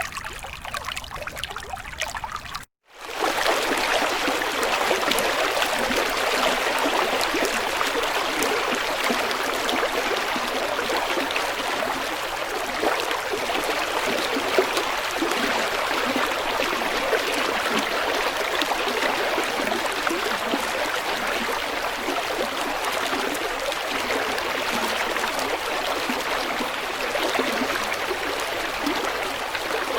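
Shallow savannah stream flowing steadily. The sound drops out briefly about three seconds in and comes back louder.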